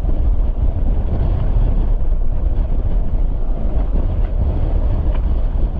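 Gale-force wind of around 40 knots buffeting the microphone in a loud, steady low rumble, with a rushing hiss over it.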